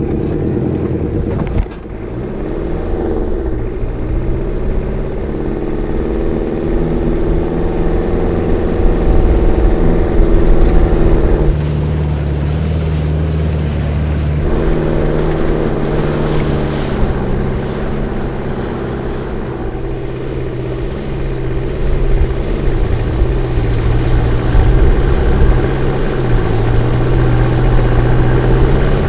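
Jeep Cherokee XJ engine revving under load as the Jeep drives through deep mud, the revs rising and falling, with mud and water splashing off the tyres and underside.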